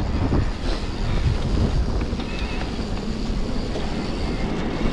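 Wind noise rushing over the camera microphone of a moving mountain bike, with the tyres rumbling over a dirt and grass trail.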